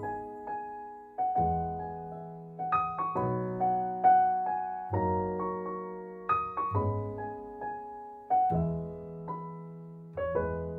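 Background music: a gentle solo piano piece, chords with a low bass note struck about every second and a half to two seconds and left to ring out.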